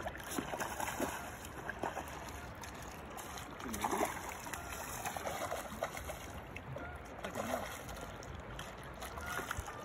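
River water running and lapping against shoreline rocks, a steady wash, with a few brief, faint murmurs of voices.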